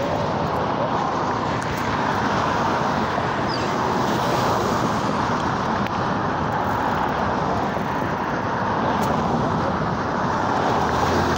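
Steady rushing wind on a phone microphone while riding a bicycle along a road, mixed with road traffic noise.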